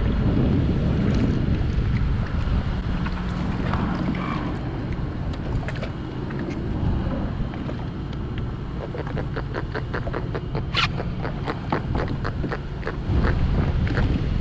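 Strong wind buffeting the microphone on open water. About two-thirds of the way in comes a run of quick, light ticks lasting several seconds, made while a small fish is being unhooked.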